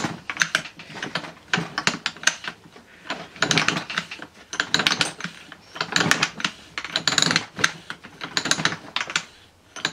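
Kick-start parts of a Derbi Euro 3 engine clicking metallically in quick bursts, about eight clusters of rapid clicks in a row as the kick-start mechanism is fitted and worked.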